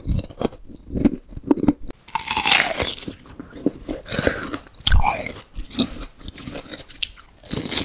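Close-miked eating of sweet food: crunchy bites and chewing in quick irregular bursts, with a longer, denser crunch about two seconds in and another around four to five seconds.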